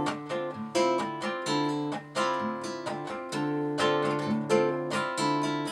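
Acoustic guitar playing an instrumental passage of plucked notes, several a second over held bass notes, with no singing.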